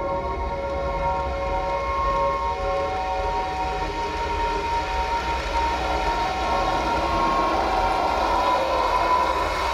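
Film soundtrack of long, held synth chords that shift pitch every few seconds over a low rumble, heard through cinema speakers and recorded on a phone.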